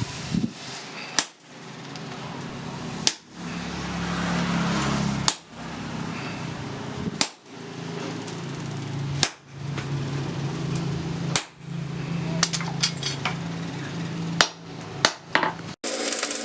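Hammer blows ringing on steel on an anvil, forging tongs: single heavy strikes roughly every two seconds, with a quick run of lighter taps about three-quarters of the way through, over a steady low hum.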